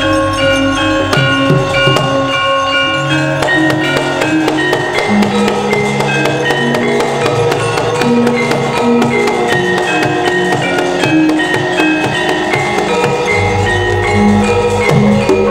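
Javanese gamelan playing: bronze metallophones and kettle gongs struck in interlocking melodic lines over a steady tapping beat. A deep low note comes in near the end.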